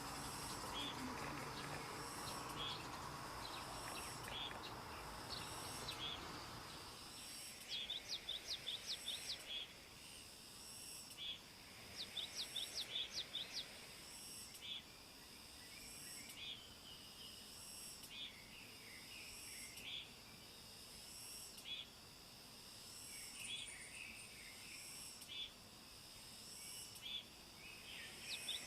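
Wild birds calling: a high chirp repeats about once a second, and a few times a run of quick, sharp notes, about five a second, breaks in. A soft rushing noise underlies the first six seconds.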